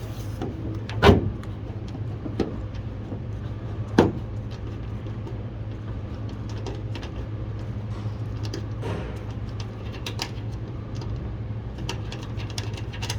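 Knocks, clicks and rattles of the sliding door's handle assembly being worked loose and pulled out of the door, with two sharp knocks, about a second in and about four seconds in, over a steady low hum.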